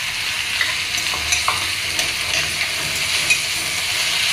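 Chopped flat beans sizzling in hot oil in a kadhai, with a steady hiss. A metal spatula stirring and scraping against the pan adds scattered clicks.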